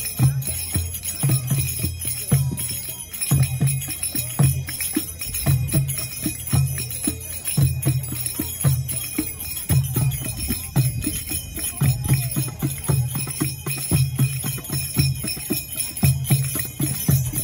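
Live hand drumming for belly dance: deep drum beats and sharp strokes in a steady, repeating rhythm, with bright metal jingles ringing over it.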